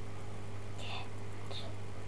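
A steady low electrical hum with background hiss, broken by two brief, faint high-pitched squeaks, one about a second in and another about half a second later.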